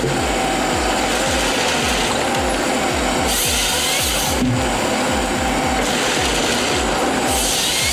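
Background music with a steady pounding beat, laid over continuous machine and sawing noise from a timber harvester processing logs.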